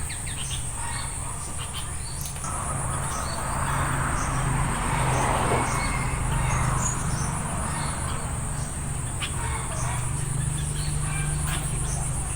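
Short scattered bird chirps over a steady high-pitched insect drone and a low hum. A rushing noise swells up in the middle and fades again.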